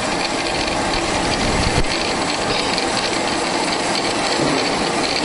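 Qualters and Smith Sawmaster horizontal bandsaw running steadily, its band blade driven while the saw head feeds down through the bar stock. A single short knock comes about two seconds in.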